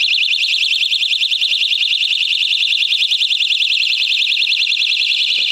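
Fire alarm sounder going off with a loud, high-pitched, fast warble. It has been set off by a detector test during a functional check of the fire alarm system.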